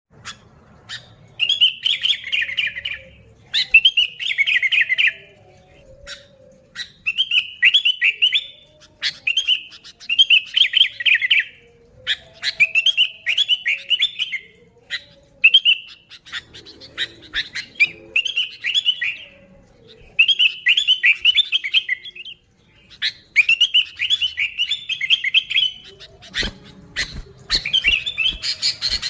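Sooty-headed bulbul (kutilang) singing: short warbled phrases about a second long, repeated roughly ten times with brief pauses and sharp single chirps between them. The song grows busier and more continuous near the end.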